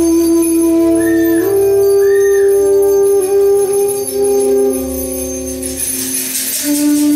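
Live band music led by a bansuri bamboo flute playing a slow melody of long held low notes with bends, over a bass drone. A high shimmering percussion comes in near the end.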